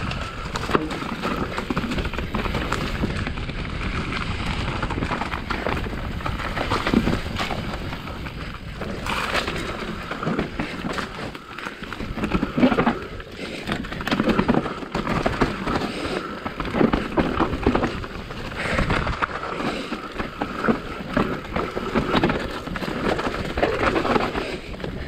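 Specialized Enduro full-suspension mountain bike being ridden downhill on a loamy dirt trail. The tyres rumble over the ground, and the chain and frame give off frequent clattering knocks over bumps. The loudness swells and dips along the way.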